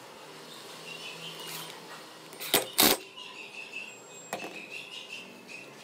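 Cordless drill run in two short bursts, a quarter second apart, boring a hole in a thin hardwood piece, followed by a single click. Faint bird chirps in the background.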